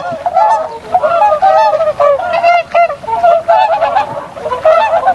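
A flock of swans honking, many short calls overlapping one another in quick succession.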